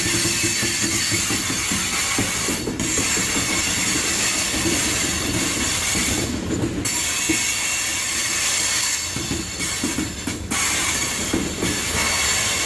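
Freight train of black tank cars rolling slowly past at close range, its steel wheels squealing on the rails over a low rumble and clatter. The sound dips briefly about every four seconds.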